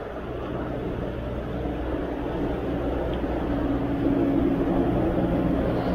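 Steady low rush of a fast river running high with spring runoff, with a faint hum that rises briefly in the middle.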